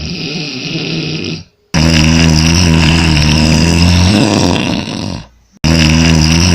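A person snoring, loud long drawn-out snores with a deep steady drone. The sound breaks off abruptly between snores, and the same snore starts over near the end, as if the recording were cut and repeated.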